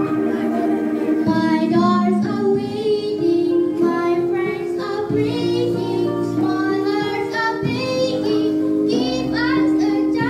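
A girl singing a slow melody into a microphone over backing music with held chords.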